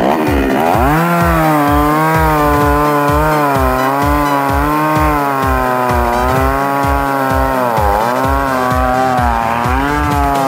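Two-stroke chainsaw revving up and cutting through a beech log, its pitch dipping and recovering as the chain bites. A steady low beat of about four thumps a second from background music runs under it.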